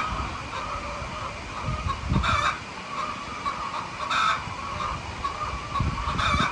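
A flock of chickens clucking and calling steadily. Short, noisy bursts stand out about every two seconds.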